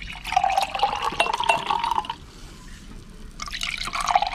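Apple lemonade poured from a jug into a glass tumbler: a splashing pour for about two seconds, a short pause, then a second pour near the end.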